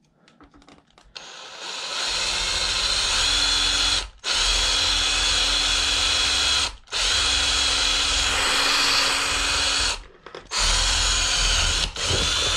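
Cordless power drill with a very small bit drilling a pilot hole into the centre of a pop rivet on an inline skate's cuff. It spins up with a rising whine about a second in, then runs steadily, stopping briefly four times.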